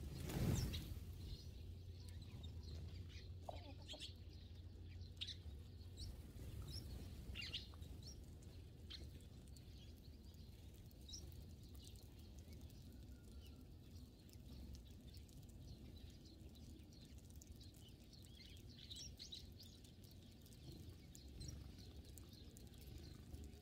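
Flock of Eurasian tree sparrows feeding, giving faint, scattered short chirps, with a brief rush of wingbeats about half a second in as part of the flock lifts and resettles.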